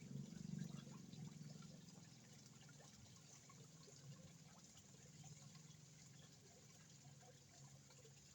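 Faint water trickling in a small koi pond over a low hum, the hum louder in the first second or so, with light scattered ticks.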